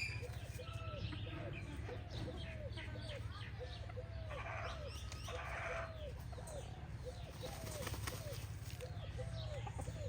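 A flock of chickens calling: many overlapping short clucks repeating several times a second, with higher chirps among them, over a steady low hum. There are two brief louder noisy bursts around the middle.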